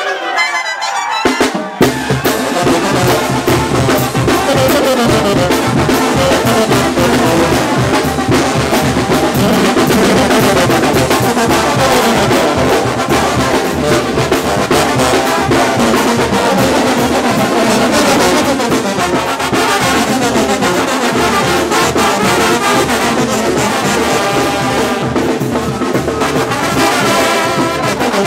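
Mexican brass band (banda de viento) playing loudly: trumpets and trombones over sousaphones and a drum kit with cymbals. About two seconds in the sound jumps abruptly from a thin, trumpet-led passage to the full band with heavy bass and drums.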